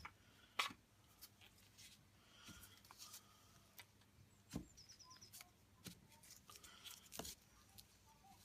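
Near silence broken by scattered faint clicks and light taps, with a duller knock about halfway through: small knife-handle parts being handled on the bench.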